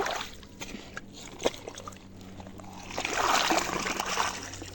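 Floodwater splashing and trickling, with a louder spell of splashing about three seconds in that lasts just over a second.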